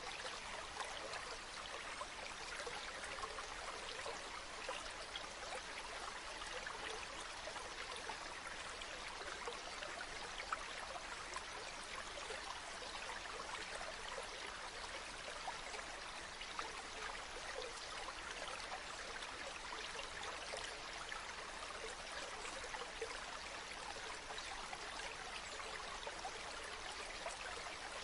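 River water flowing and babbling over rocks, a steady rushing with small splashes and trickles throughout.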